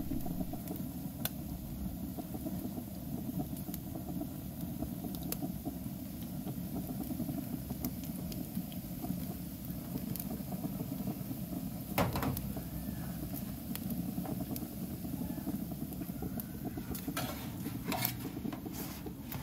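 Steady low rumble of a gas flat-top griddle's burners, with faint scattered crackles of sauced brisket and rolls sizzling on the hot plate. A sharp knock about twelve seconds in and a few more near the end.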